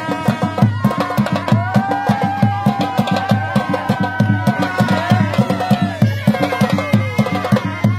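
Traditional Hunza folk dance music: drums beat a fast, steady rhythm under a reedy wind melody, likely a surnai (shawm), which holds a long wavering note through the middle.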